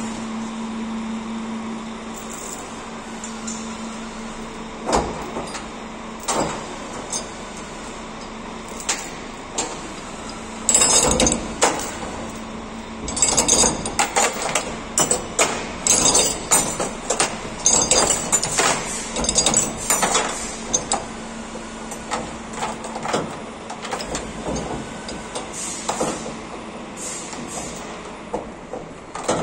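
Heavy steel chain and a steel pulling clamp clanking and rattling as they are handled and fitted to a truck cab's door pillar, with a dense run of sharp metal knocks in the middle. A steady low hum runs underneath and fades out about two-thirds of the way through.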